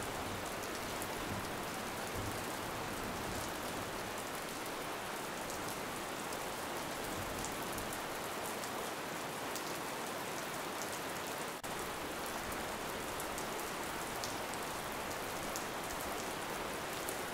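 Steady rain, an even hiss with scattered fine drop ticks, dipping for an instant about two-thirds of the way through.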